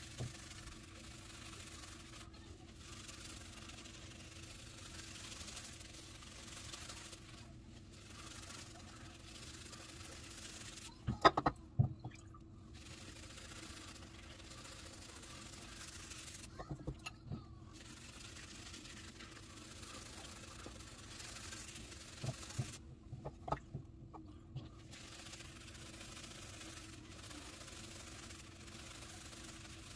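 Badger shaving brush swirling soap lather over a shaved scalp: a soft, steady brushing hiss that stops for short moments several times. Clusters of sharp clicks come about eleven seconds in, the loudest of them, and again near the middle and about two-thirds through. A steady low hum sits underneath.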